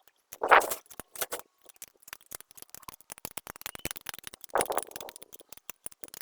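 Irregular small clicks and ticks of hand tools and metal parts being handled on an engine, with a louder knock about half a second in and another just past four and a half seconds.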